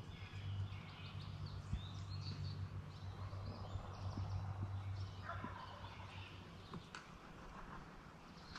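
A wild turkey gobbler gobbling once, faintly, about five seconds in.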